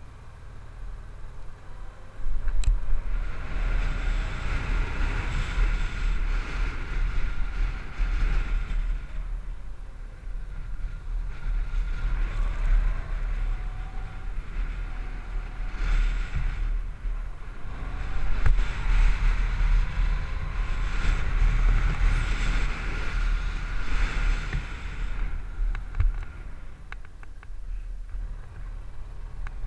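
Ride noise from a Honda DN-01 motorcycle picked up by a GoPro on the bike: a heavy low rumble of wind buffeting and engine under a hiss with a steady whine. The hiss and whine swell up about two seconds in, again around eleven and eighteen seconds, each time for several seconds.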